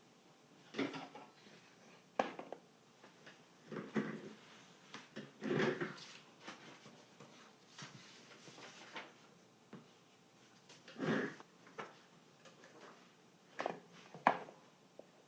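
Hands and tools working on an old home theater speaker during a foam surround repair: scattered short scrapes, rubs and knocks at uneven intervals, with longer rubs about five and eleven seconds in.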